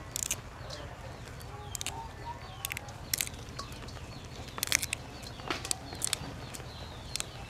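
Leafy green vegetable stems being snapped and leaves plucked off by hand: a string of irregular crisp snaps and leaf rustles. Faint bird chirps sound in the background.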